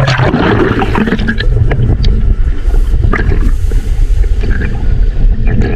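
Sea water sloshing and splashing over an action camera's microphone as a swimmer moves through the ocean, over a heavy, steady low rumble with scattered splashes and clicks.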